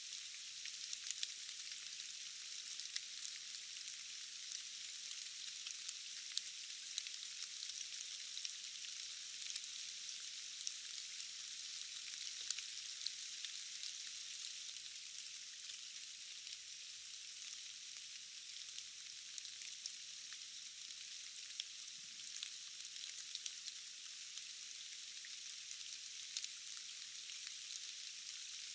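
Steady rain: an even hiss with many scattered drops ticking sharply through it.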